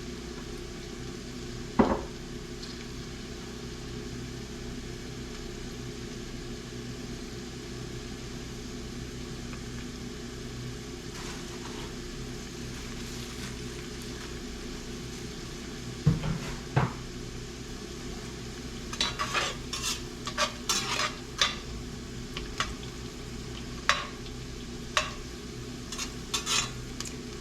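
Chopped vegetables sizzling softly in a soup pot over a steady hum, with a single knock about 2 seconds in and another around 16 seconds. In the last third a spoon stirs, scraping and clinking against the pot in a quick run of clicks.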